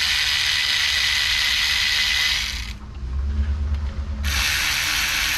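Power ratchet gun spinning bolts down to snug them, a steady high whirring hiss; it stops a little before 3 seconds in and starts again about a second and a half later.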